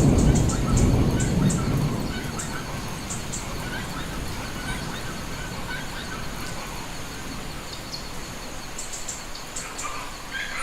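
Rain forest ambience: a low thunder rumble fading away over the first two seconds, over a steady wash of rain. Scattered short bird calls, and a high steady buzz with rapid ticking, run through it.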